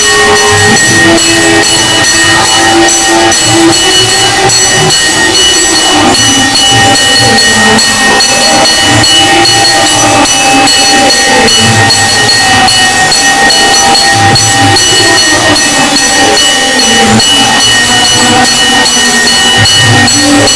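Temple bells and percussion sounded for an aarti, with rapid, even strikes and steady high ringing tones over a lower rumble, very loud.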